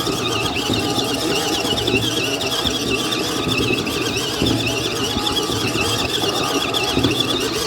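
Ucclife 1.5 kg mini washing machine running, its small motor giving a steady low hum under a high, wavering whine.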